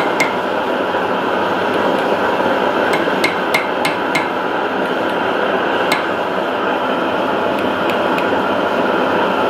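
Light ball-peen hammer taps on a short copper tube held against a steel anvil face, each with a brief metallic ring. There is one tap at the start, a quick run of five about three seconds in, a single tap near six seconds and a few faint ones near the end. Under the taps runs a loud, steady rushing noise.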